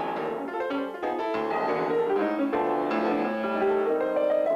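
Piano playing quick runs of notes over chords.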